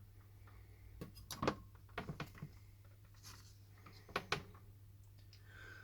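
Scattered light clicks and taps of small plastic and metal smartphone parts and tools being handled during reassembly, a few at a time, over a steady low electrical hum.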